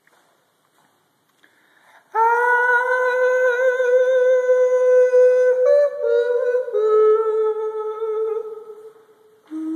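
A voice holding long sung or hummed notes, starting about two seconds in: one note held for several seconds, then a few steps down in pitch, fading, and a lower note near the end. Each note rings on in the reverb chamber built in an old bank vault.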